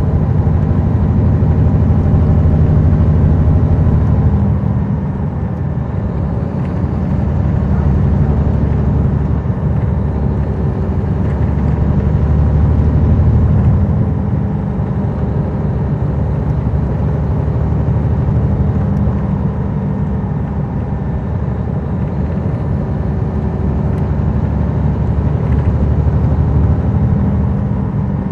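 A NABI 40-SFW transit bus's Caterpillar C13 diesel engine and ZF Ecomat six-speed automatic transmission, heard from the rear seat inside the bus while it drives. The engine's deep drone swells and eases several times, and there is no transmission howl.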